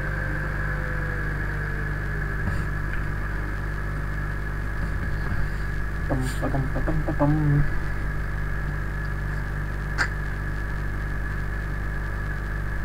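Steady electrical mains hum with hiss on the recording's microphone line. A few faint short sounds come about halfway through, and a single sharp click about ten seconds in.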